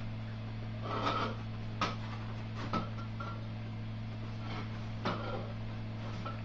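A dog chewing and tugging at a toilet paper roll on a fallen metal roll holder: brief rustles of paper and a handful of small knocks and scrapes, about five in all, over a steady low hum.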